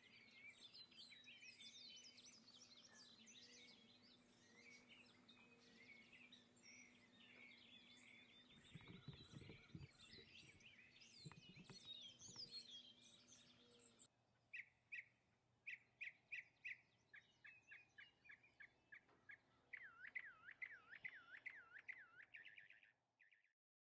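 Faint birdsong: several birds chirping and calling together, then about fourteen seconds in it changes to a single bird repeating short clear notes in quick series. The sound cuts off just before the end.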